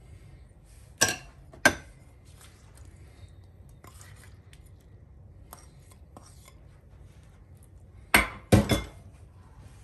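A metal spoon and ceramic dishes clinking: two sharp clinks about a second in, quieter taps and scrapes after them, then three sharp clinks in quick succession near the end.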